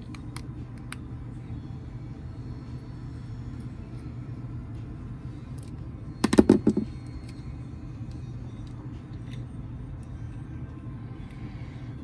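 Small clicks of a Phillips screwdriver working the terminal screws in a hair clipper's plastic cord end cap. About halfway through comes a short clatter of several knocks, as the screwdriver is put down on the countertop. A steady low hum runs underneath.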